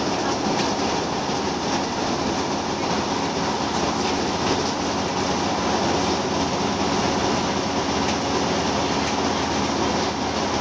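Interior of a Scania L94UB Wright Solar single-deck bus under way: the engine and drivetrain run steadily under a constant wash of road noise.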